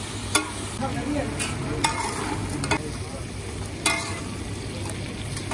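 Meat sizzling in oil on a large flat metal tawa griddle while two metal spatulas scrape and chop at it, with several sharp metal clacks of spatula on griddle.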